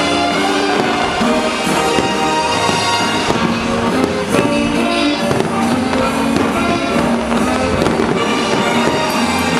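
Loud music with aerial fireworks shells bursting over it several times; the display is choreographed to the music.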